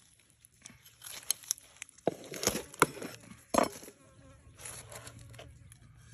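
A person eating, with irregular crisp crunches and clicks, the sharpest a little after two and a half seconds in and again around three and a half seconds.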